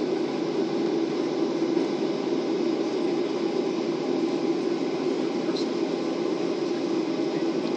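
Steady airliner cabin noise: an even rumble and hiss of engines and air ventilation heard from inside the cabin on the ground.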